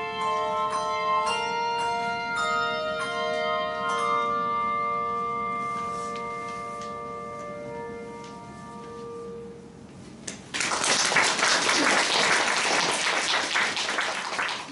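A handbell ensemble strikes its closing chords, the last chord ringing on and slowly fading away. About ten seconds in, audience applause breaks out and continues.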